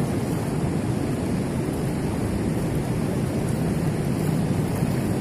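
Steady rush of a fast-flowing river running over a stony bed, an even noise without breaks.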